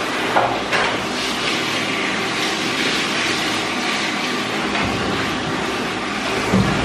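Handheld shower sprayer running steadily, water spraying onto a wet dog's coat in a stainless steel grooming tub. There are brief knocks about half a second in and a short low thump near the end.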